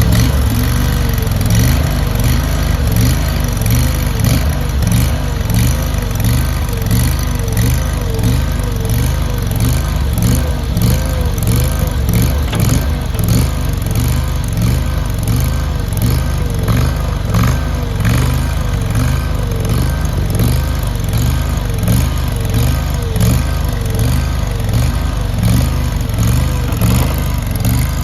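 AGT LRT23 mini skid steer loader's engine running steadily just after starting, with a tone that wavers up and down about once a second.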